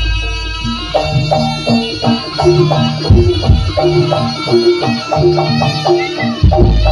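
Traditional Javanese jaranan/barongan music: drum strokes under quick, repeating short pitched notes in a steady rhythm, with a deep low boom at the start and again near the end.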